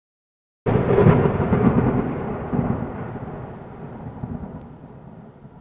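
Thunderclap sound effect: a sudden loud crack about half a second in, then a rumble that fades away steadily over several seconds.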